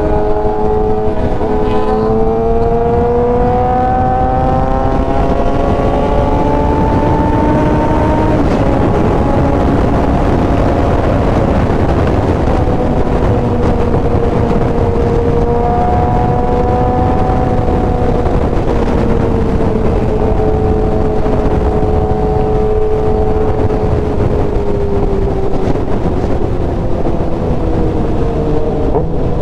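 Sport motorcycle engine running at highway speed under heavy wind noise on the rider's microphone. The engine pitch climbs over the first several seconds as the bike accelerates, then holds fairly steady with slight rises and falls.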